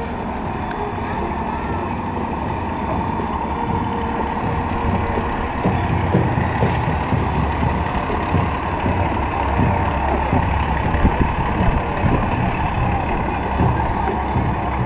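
Fire engine's diesel engine running as the truck rolls slowly past close by, getting louder about six seconds in, with a brief hiss of air about seven seconds in.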